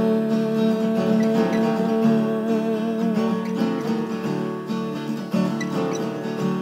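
Acoustic guitar strummed and picked in an instrumental passage of a song, with no singing.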